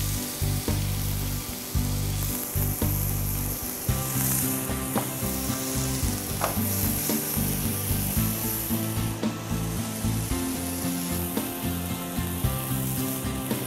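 Red snapper fillet sizzling steadily as it pan-sears in hot olive oil in a non-stick frying pan, with a few small clicks.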